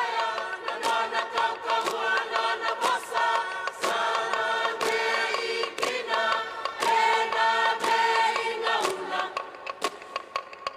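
Fijian choir singing an Alleluia chant in several voices, with sharp hand claps keeping time. About nine seconds in, the singing fades and the claps carry on more quietly.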